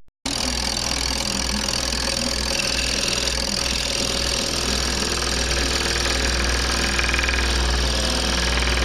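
Scroll saw running steadily, its reciprocating blade cutting through a cherry board.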